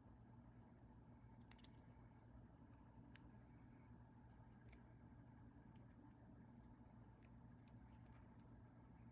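Near silence: a faint steady low hum with scattered faint small clicks.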